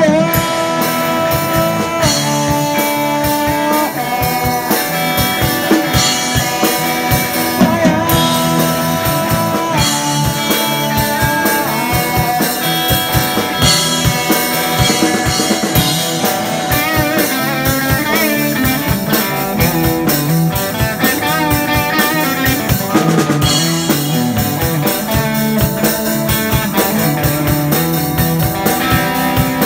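A live rock band playing electric guitars, bass guitar and a drum kit. A lead line of held notes with pitch bends sits over steady drumming.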